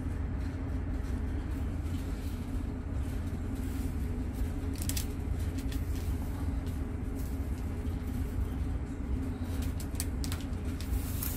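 Steady low machine hum of room equipment, with a few faint light clicks about halfway through and near the end.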